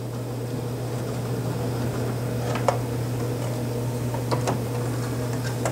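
Steady low background hum, with a few light clicks and rustles of fabric and thread being handled at a sewing machine after stitching has stopped.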